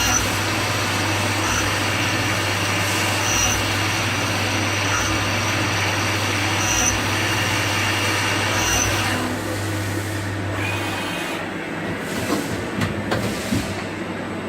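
CNC lathe with live tooling running while machining a cast differential case: a steady machine noise with a low hum and a faint high chirp repeating about every second and a half. About two-thirds of the way through the noise drops and the hum stops, followed by a few sharp clicks.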